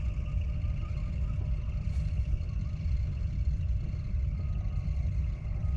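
A steady low rumble, with faint thin tones and a few faint high chirps over it.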